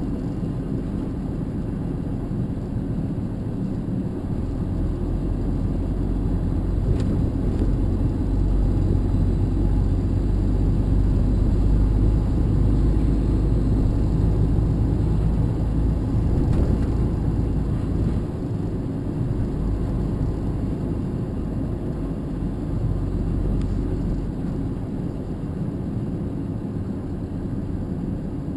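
Vehicle engine and road noise heard from inside the cab while driving, a steady low rumble that grows louder over the first half and eases back about 18 seconds in.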